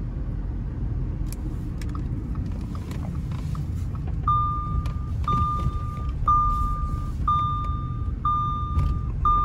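Audi A4's 2.0 TFSI turbocharged four-cylinder engine running at low speed, heard from inside the cabin as a steady low rumble. It is running smoothly on fuel mixed with five quarts of used engine oil. From about four seconds in, a high electronic beep sounds six times, about once a second.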